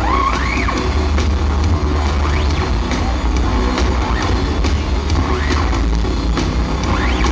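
Electropop band playing live in an arena, recorded from the stands: a strong, continuous bass line with drums, and several rising sliding high notes.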